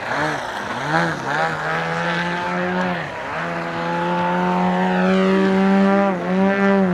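Small piston engine of a radio-controlled model airplane, blipped up and down in quick bursts, then held at steady high revs with a few brief dips.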